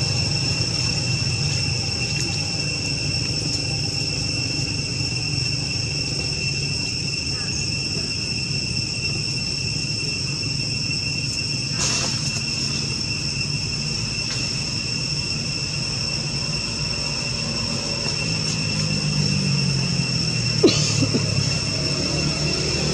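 Insects buzzing in a steady high drone, over a low engine-like hum that shifts in pitch near the end.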